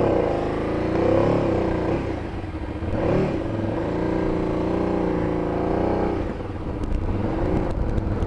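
KTM 990's V-twin motorcycle engine revving up and easing off several times through a roundabout, then pulling at a steadier pitch, with wind rushing over the helmet microphone.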